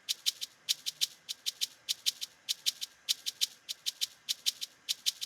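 Programmed shaker sample loop playing back from FL Studio: a repeating syncopated afrobeat pattern of short, crisp shaker hits at 100 BPM. The hits vary in loudness from note to note, following the velocities set for each note.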